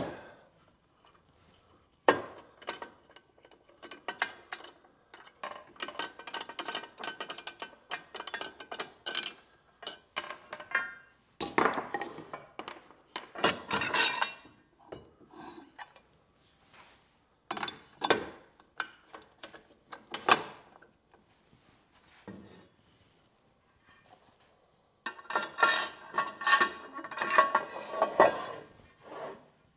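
Clinks, knocks and scraping of metal and wood as a table saw's rip fence is slid and locked and wooden blanks are handled on the saw table. They come in irregular bursts with quiet gaps, busiest near the end.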